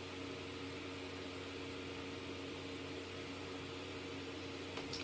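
Steady low hum with a hiss: room tone with a machine such as a fan running, and a faint click just before the end.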